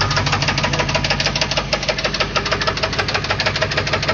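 Chevrolet 350 TPI small-block V8 running with a loud, rapid, even knock, knocking badly from an unknown cause.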